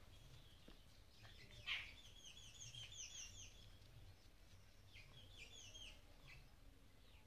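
Faint bird chirping: a quick run of short, falling chirps about two seconds in and a shorter run about five seconds in, with one brief, louder call just before the first run.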